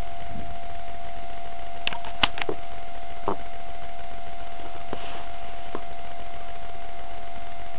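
A steady tone holds one pitch throughout, with a handful of short clicks and soft crunches scattered between about two and six seconds in; the sharpest click comes a little after two seconds.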